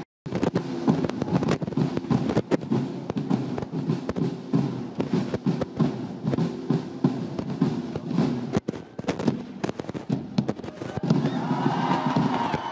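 School marching drum band playing a fast, dense cadence on snare and bass drums. Voices rise over the drumming near the end.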